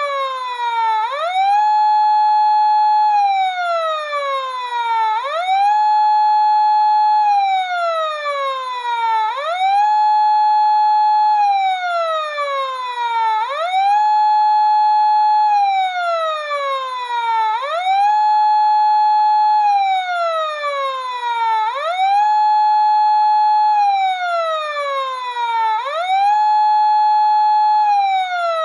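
Siren sounding a fire alarm, cycling about every four seconds: a quick rise, a high tone held for about two seconds, then a slow fall in pitch, repeating over and over.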